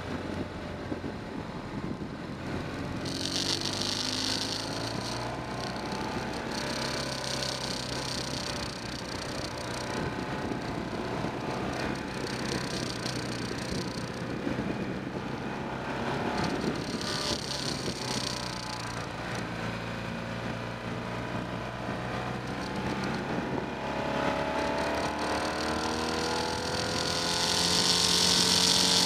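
Motorcycle engine running while riding, its pitch rising and falling as the rider accelerates and eases off, with a hiss of wind that comes and goes and is loudest near the end.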